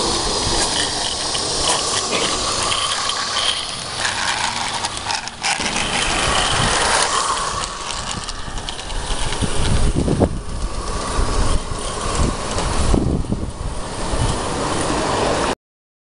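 16mm-scale live-steam garden railway locomotive and wagon running past close by: a steady hiss with wheels clicking and rattling over the track, and a few low thumps. It cuts off abruptly near the end.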